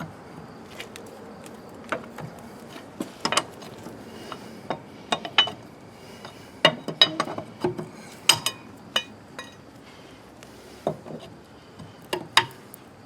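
Metal lug wrench clinking and clanking against the wheel's lug nuts as they are loosened, in irregular sharp clinks.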